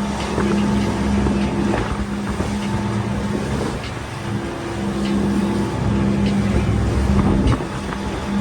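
Motorboat engine running steadily at cruising speed, with a constant engine hum under wind and water noise and frequent short splashes as the hull runs through the waves.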